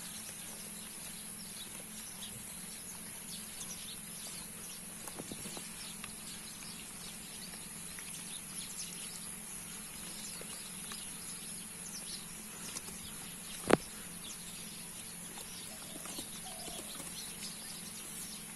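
Faint outdoor rural ambience: a steady high hiss with scattered small chirps and ticks, and one sharp knock about fourteen seconds in.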